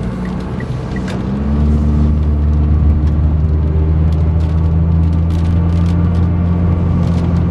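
Car on the move: a steady low engine and road drone that grows louder about one and a half seconds in, with scattered light ticks over it.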